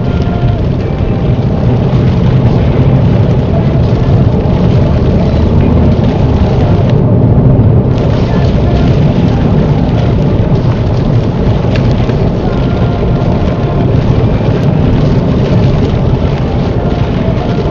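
Inside a car driving in heavy rain: steady road and tyre noise on the wet surface under the hiss of rain hitting the windscreen and roof. The rain hiss drops out for about a second, seven seconds in, as the car passes under a bridge.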